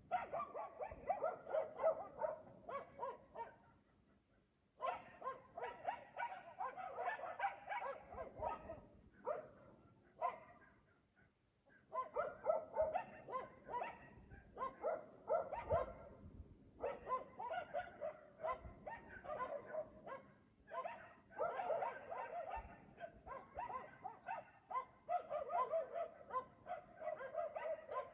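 Dog barking over and over in long runs of quick barks, with short lulls about 4 and 10 seconds in.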